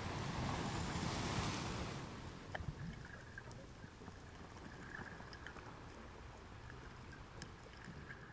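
Underwater sound on a scuba dive: a rush of exhaled regulator bubbles for about the first two seconds, then quieter underwater hiss with scattered sharp clicks.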